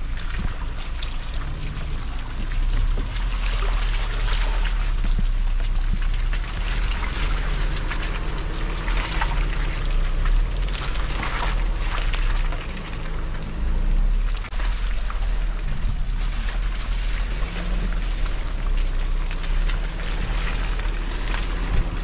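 Suzuki Jimny driving along a rough dirt off-road trail. The engine hum shifts up and down in pitch with throttle and gears over a heavy low rumble, and tyres crunch with scattered rattles and ticks from the rough ground.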